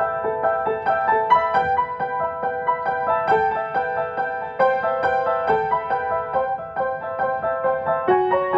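Solo piano improvisation: a steady stream of quick, repeated notes in the middle and upper register, shifting to a lower note about eight seconds in.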